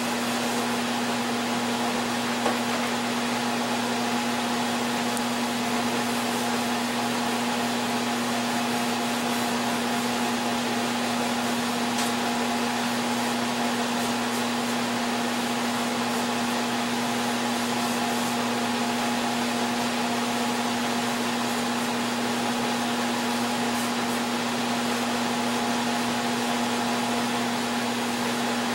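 An electric motor running steadily with a rush of air and a constant hum, as from a power sander, dust extractor or spray turbine.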